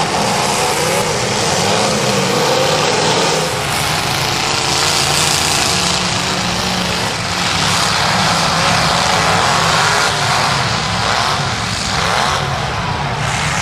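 Several unmuffled demolition-derby car engines running hard and revving at once, a loud steady roar with shifting pitch.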